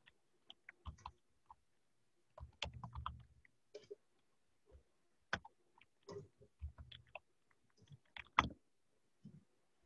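Faint, irregular clicking of computer keyboard keys being typed, with a few mouse clicks, as a username and password are entered.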